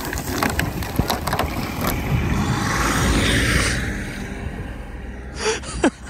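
Sherp ATV's diesel engine rumbling as the machine rams a snow-laden spruce in third gear, with sharp cracks of breaking wood as the tree is uprooted and a rush of snow falling off the branches. Near the end comes a brief squeal that slides steeply down in pitch.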